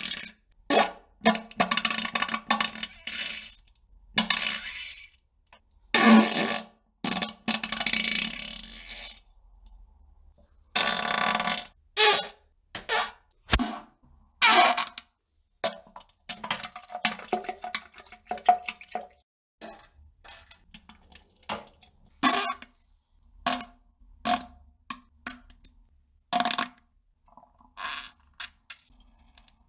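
A long run of short fart and splattering poop sounds, one after another with brief gaps. Most are quick sputters, and a few stretch to about a second.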